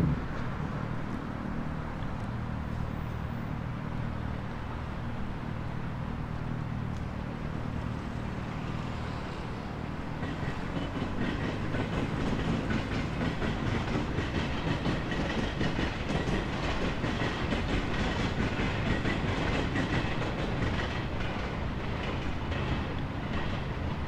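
A train passing on rails, its wheels clattering in a quick regular rhythm that grows louder about halfway through.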